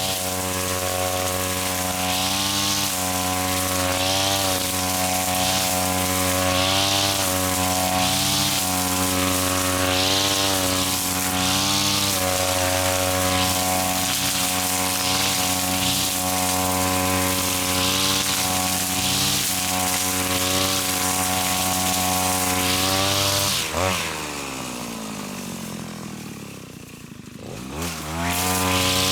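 Small petrol engine of a grass cutter running at high revs, dipping in pitch every second or two as it bites into thick grass, with swishes of cutting. Near the end the engine drops to idle for a few seconds, then revs back up.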